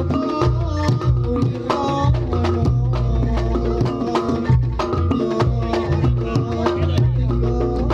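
Reog Ponorogo gamelan music (tabuhan reyog): a busy pattern of drum strokes over tuned gongs ringing out steady pitches.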